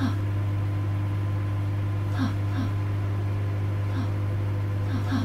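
Microwave oven running with a steady low hum. Short chirps come a few times over it.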